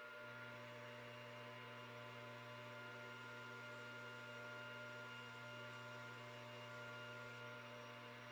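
Metal lathe running steadily with its chuck spinning, giving a steady motor hum with a faint high whine above it.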